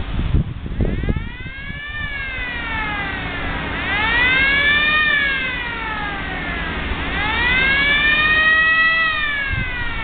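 A siren wailing, its pitch sweeping slowly up and down about every three seconds, three rises in all. Some wind noise on the microphone at the start.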